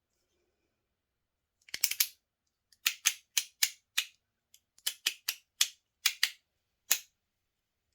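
Metal MOT Rhythm fidget being rotated by hand, its detents snapping with sharp, loud clicks, about a dozen, singly and in quick pairs, starting about two seconds in.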